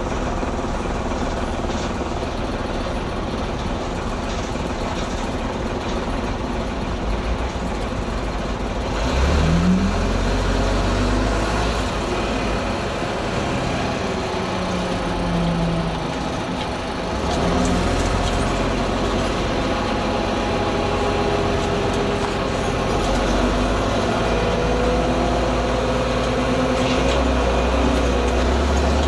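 Leyland Olympian double-decker bus engine running and pulling away, rising in pitch and level about nine seconds in, then dipping briefly near sixteen seconds and picking up again as the gears change. Short air hisses come with the gear changes: the 'sneezing gears'.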